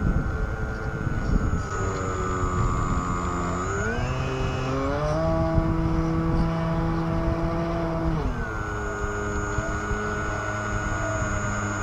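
RC Super Cub's electric motor and propeller whining, the pitch dipping about four seconds in, climbing to a steady higher note as throttle is added, then dropping again about eight seconds in. Wind rumble on the onboard camera runs underneath.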